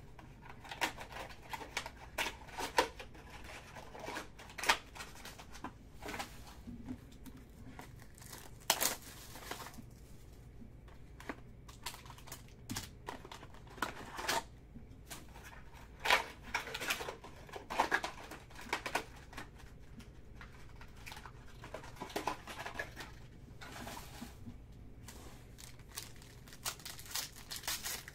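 Hands crinkling and rustling foil-wrapped trading-card packs and handling card boxes, in short irregular bursts; near the end a foil pack wrapper is torn open.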